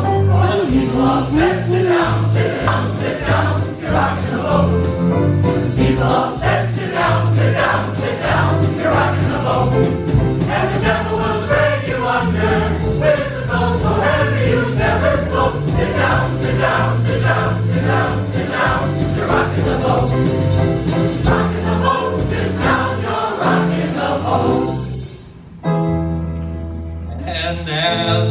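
Mixed-voice choir singing an upbeat show tune over a rhythmic instrumental accompaniment with a steady beat and a walking bass line. Near the end the music drops away suddenly, leaving a single held low note.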